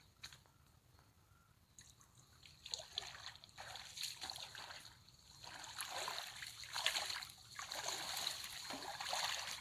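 Shallow water splashing and sloshing as a pike is landed by hand: the water is stirred at the angler's feet while the fish is lifted out. It begins about two seconds in and grows busier and louder toward the end.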